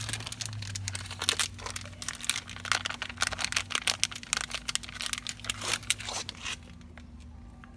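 Crinkling and clicking from handling small 194 LED bulbs: a dense run of quick, sharp ticks over a low steady hum, stopping about six and a half seconds in.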